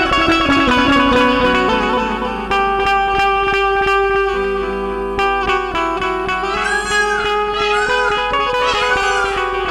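Indian banjo, a keyed, plucked string instrument, playing a melody of quickly picked, ringing notes. Near the end there are three swooping notes that bend up and back down.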